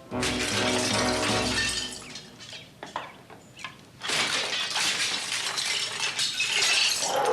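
Glass shattering in a sudden loud crash, then pieces clinking down for a moment, then a second longer stretch of crashing and breaking. Music plays under it.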